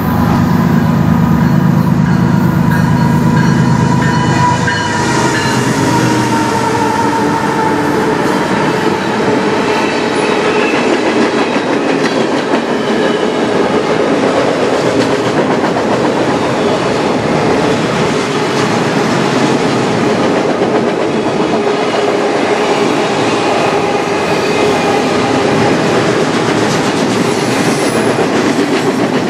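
Freight train passing close by: a heavy low drone for the first few seconds, then the steady rolling noise and wheel clatter of autoracks and other freight cars on the rails.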